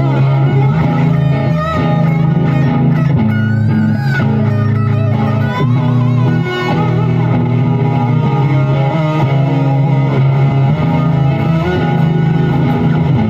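Ibanez RG6003FM electric guitar playing a lead line with bent notes and vibrato over strong, steadily held low notes.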